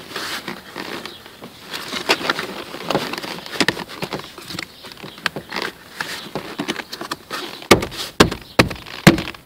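Plastic kick panel and carpet in a Chevy's footwell being handled and pressed into place by hand: scraping and rustling with scattered clicks, then several sharp knocks near the end as the panel is pushed home.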